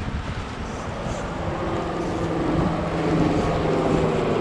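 A motor's steady drone that comes in about a second and a half in and grows louder, over wind noise on the microphone.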